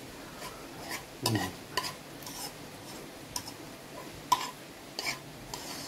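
Scattered soft clicks and scrapes of rice and dal being mixed and eaten from a plate, with the sharpest clink a little past four seconds in. A brief vocal sound comes about a second in.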